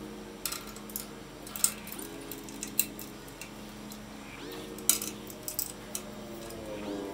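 Light metallic clicks and clinks of bolts and washers being handled and tightened by hand on a table saw's fence rail, a scattered handful of sharp taps over a faint steady hum.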